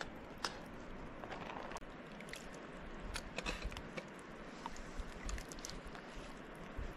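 A metal spoon serving rice and curry: scattered light clicks and scrapes against metal pots and plastic-lined plates, over a faint steady hiss.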